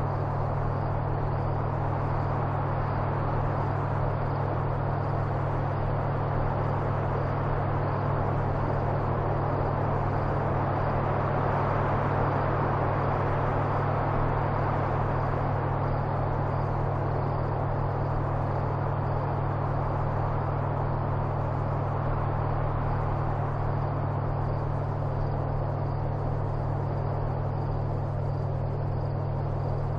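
Steady low hum under an even hiss of background noise, with no speech.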